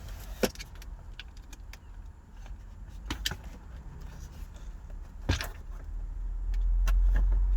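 Scattered clicks and clacks of metal and plastic parts as the gear shifter assembly is worked loose from the car's floor, with a low rumble swelling near the end.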